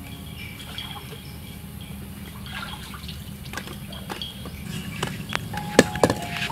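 Water dripping and trickling, with a few sharp knocks near the end.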